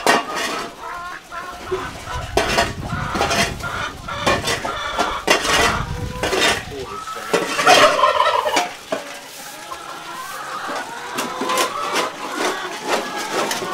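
Animal calls mixed with repeated clattering knocks; the calls are loudest about eight seconds in, and low handling rumble runs through the first half.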